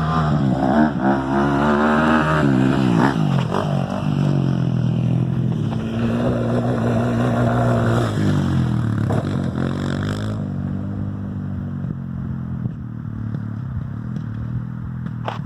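Small 250 cc off-road engine revving. The pitch climbs and holds, drops back around three seconds in, then climbs again and holds until about eight seconds before falling away. After about ten seconds the sound turns duller and fades.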